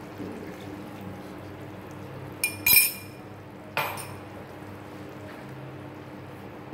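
Two sharp clinks of metal cookware, about two and a half and four seconds in, the first the louder and ringing briefly, over a low steady background hum.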